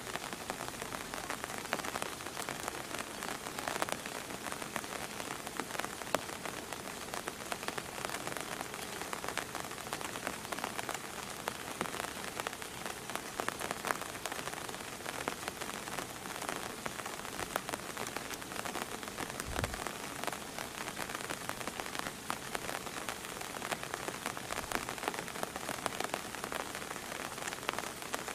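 Steady rain falling, many individual drops ticking sharply through an even hiss.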